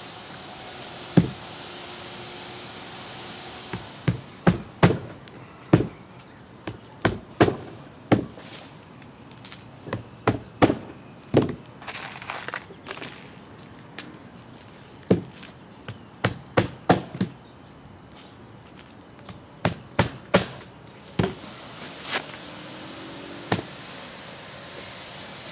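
Hammer driving roofing nails into asphalt shingles: sharp, irregular blows, often in quick runs of two to four, with a short scraping sound about halfway through.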